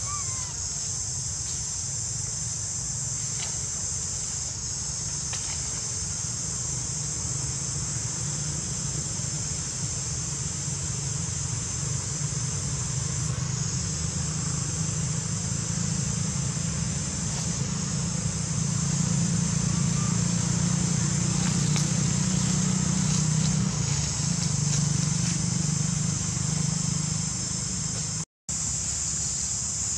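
Steady, high-pitched chorus of forest insects such as cicadas or crickets, with a low rumble beneath it that grows louder in the second half. The sound cuts out for an instant near the end.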